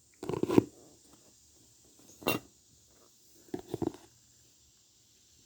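A metal Jeep belt buckle being handled and set down, in three short bouts of clinking and rubbing, the middle one a sharp clink with a brief ring.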